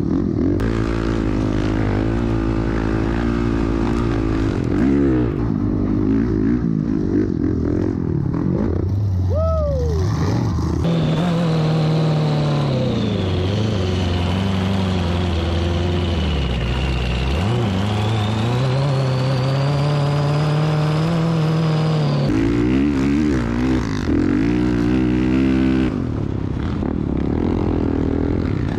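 Honda CRF450R dirt bike's single-cylinder four-stroke engine running and revving up and down while riding in sand. About eleven seconds in, it gives way for roughly ten seconds to a smoother engine note with a high whine that dips and rises, then the dirt bike engine returns.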